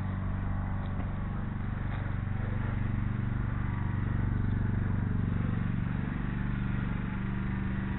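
A steady low mechanical hum with a few faint ticks.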